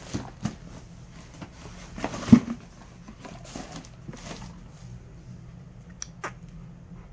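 Dog ripping and chewing at a cardboard box: scattered tearing, crackling and knocking of the cardboard, with one louder thump about two seconds in. After that it goes quieter, with two sharp clicks near the end.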